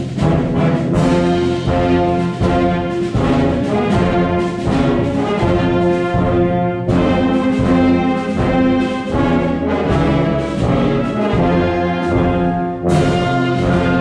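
Community concert band playing live, brass-heavy with tubas on the bass, in sustained chords with short accented notes; a loud accented entry comes near the end.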